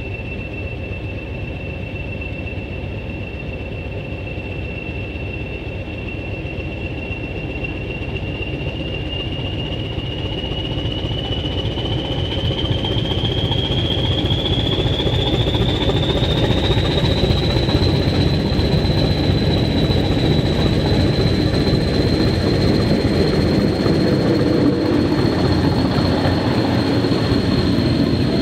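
Class 20 diesel locomotive, with its English Electric eight-cylinder diesel engine, working as it pulls its train away and approaches. A steady high whine over a heavy rumble rises in pitch partway through and then holds, while the sound grows louder as the locomotive comes close.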